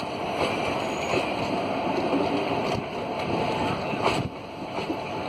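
Passenger coaches of an Indian Railways express train rushing past at speed: a steady roar of wheels on the rails and rushing air, with a couple of sharp knocks as wheels cross rail joints.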